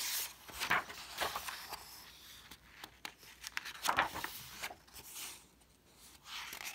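Pages of a paperback picture book turned by hand: several swishes and rustles of paper, the loudest about four seconds in.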